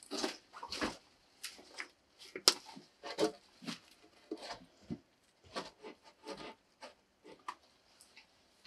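Irregular rustling and scuffing of movement on a floor of loose wood chips, with light knocks on wood and one sharp click about two and a half seconds in.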